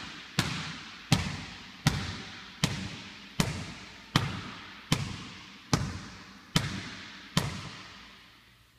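Basketball dribbled steadily on a floating-design hardwood sports floor: about ten bounces, a little under a second apart, each with a decaying ring. The dribbling stops about three-quarters of the way through.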